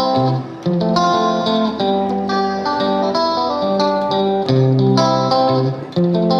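Background music: plucked guitar notes picking out a melody over steady chords.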